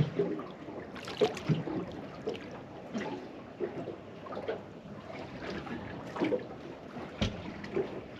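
Water lapping and slapping against the hull of a small boat in irregular splashes, with a sharper knock near the end.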